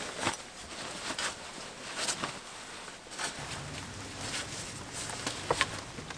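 Rain falling steadily as an even hiss, with irregular drips and taps, the sharpest a little over five seconds in.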